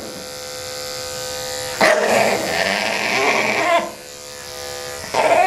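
Electric dog-grooming clipper running with a steady hum while a small dog being clipped vocalises in protest: a long outburst about two seconds in and a shorter one near the end.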